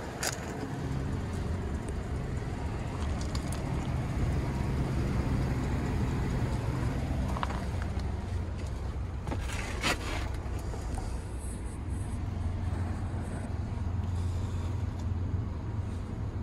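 2008 Chevrolet cube truck's engine idling steadily, heard from inside the cab as a low hum, with a sharp click near the start and another about ten seconds in.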